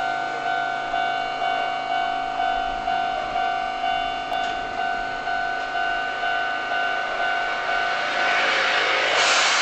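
Japanese railway level-crossing warning bell ringing its even two-tone clang, about twice a second, while a train stands at the station. Near the end a broad burst of hissing rises over it, as from the train's air system.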